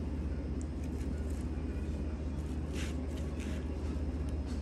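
A steady low hum, with two short hissy noises about three seconds in.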